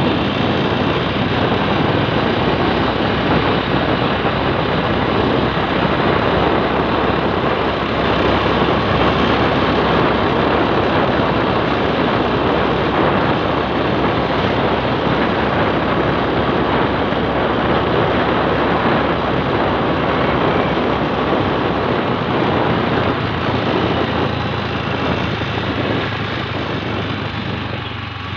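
Steady road noise from riding a motor scooter or motorbike: wind rushing over the microphone blended with the two-wheeler's engine and tyres, getting a little quieter near the end.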